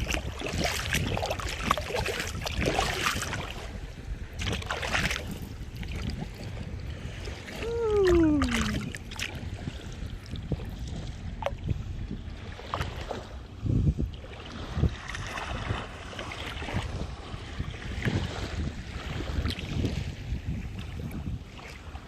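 Wind buffeting the microphone over sea water sloshing and splashing, with a single short falling-pitched call about eight seconds in.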